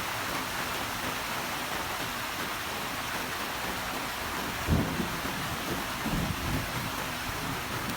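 Rain falling steadily, with a sudden low crack of thunder just before halfway that rumbles on for a couple of seconds.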